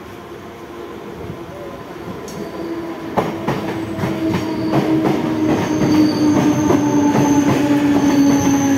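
Mumbai suburban EMU local train pulling into the platform, growing louder as it approaches. Its electric traction whine slides slowly down in pitch as it slows, with wheels knocking over the rail joints and a high wheel squeal from about halfway through.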